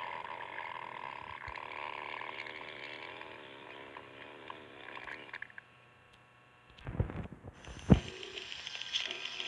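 Cartoon stomach-growling sound effects: a long gurgling rumble, a brief near-silent break, then two short low rumbles about a second apart, the second the loudest.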